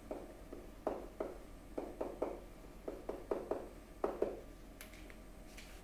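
Stylus or pen tapping and scratching on a writing surface as words are handwritten: a quick series of short ticks and strokes, a dozen or more, thinning out near the end.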